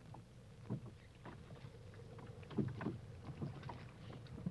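Irregular knocks and thuds from a small dory being loaded with wet herring-weir net as it floats, with a cluster of louder knocks a little past halfway.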